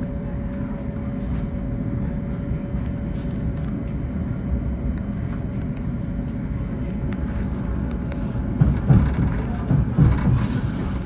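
NJ Transit commuter train in motion: a steady low rumble of wheels on rail with a faint constant hum, scattered light clicks, and a few louder knocks near the end.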